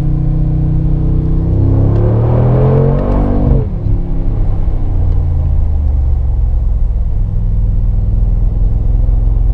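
Mercedes-AMG G63's 4.0-litre twin-turbo V8 pulling under throttle. Its pitch rises for about two seconds, drops sharply as the throttle is closed about three and a half seconds in, then settles to a steady low note.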